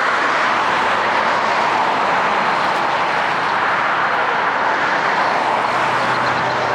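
Airbus A330 jet engines running, a loud, steady rushing noise.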